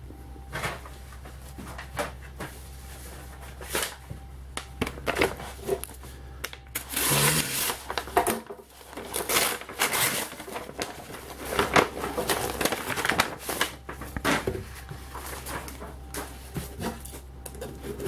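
Irregular rustling, scraping and knocking of cardboard and paper as a shipping box is pulled out of its paper wrapping and handled, busiest in the middle.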